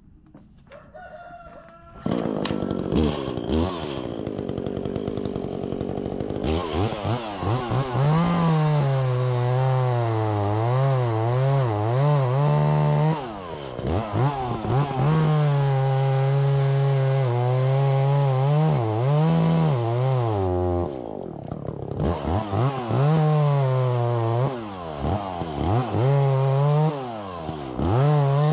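Echo CS-400 two-stroke chainsaw starting about two seconds in, then revving up and down over and over, dropping back twice before revving again.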